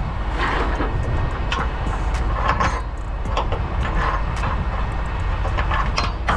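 Western Star semi truck's diesel rumbling steadily, with irregular metallic clanks and rattles over it.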